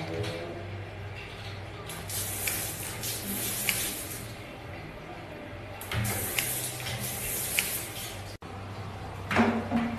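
Handheld bidet sprayer squeezed to spray water against a tiled wall, hissing in two bursts of about two seconds each: one about two seconds in and one about six seconds in.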